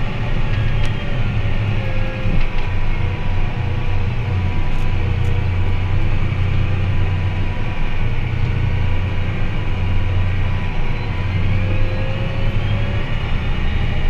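John Deere tractor engine running under way, heard from inside the cab: a steady low drone with a faint higher whine above it.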